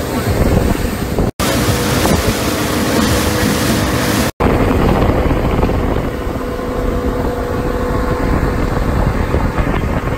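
Motorboat under way: a steady engine drone with wind buffeting the microphone and the rush of water from the wake. The sound cuts out abruptly twice, about a second and a half in and again after about four and a half seconds.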